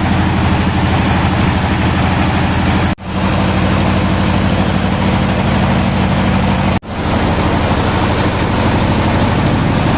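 Palm fruit threshing machine running, its engine steady with a fast low pulsing. The sound breaks off abruptly twice, about three seconds in and near seven seconds, and resumes at once.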